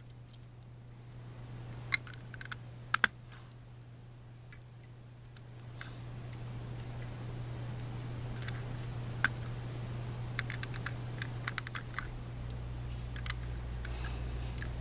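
Plastic LEGO tiles and bricks clicking as they are picked up and pressed onto the edges of a brick build: scattered sharp clicks, some in quick pairs or small clusters, over a steady low hum.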